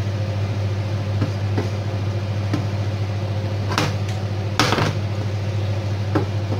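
Wooden spatula stirring chickpeas and spinach in a nonstick frying pan, giving about half a dozen scrapes and taps against the pan, the longest a little past halfway, over a steady low hum.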